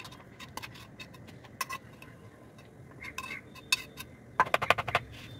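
Metal spoon clinking and scraping against the inside of a metal pot while soaked sago pearls are scooped out, with a quick run of louder taps near the end.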